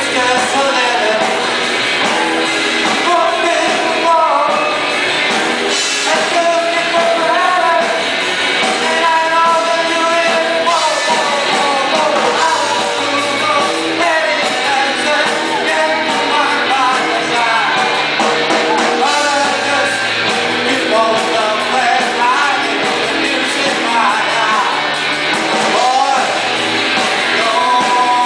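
Live rock band playing a song, with lead vocals sung over guitars, bass guitar and a drum kit.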